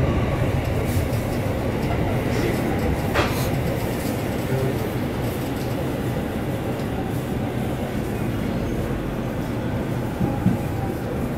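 Electric commuter train's running rumble heard from inside the car as it draws into a station. A brief sharp click sounds about three seconds in, and a small knock near the end.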